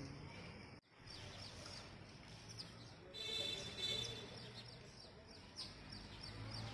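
Birds chirping faintly: a busy run of short, high, quick chirps that begins about a second in, with a brief steadier high call around the middle.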